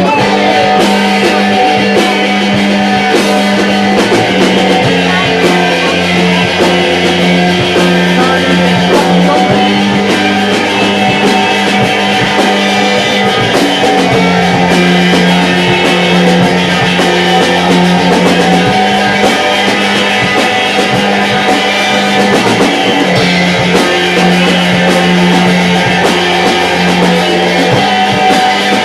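Live rock band playing an instrumental passage: guitar over bass and drum kit, loud throughout, the bass holding long notes that change every few seconds.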